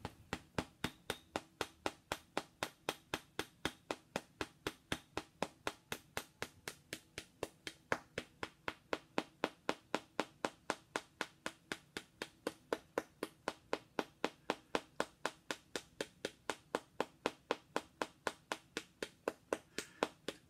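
Small hand-held hammer tapping a figurine in a quick, even rhythm of about four light taps a second, without pause.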